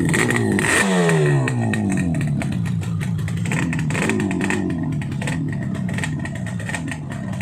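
Yamaha RD350 air-cooled two-stroke parallel twin running through its stock silencer: revved, the revs falling away just after the start, then a short blip about four seconds in, before it settles back toward idle.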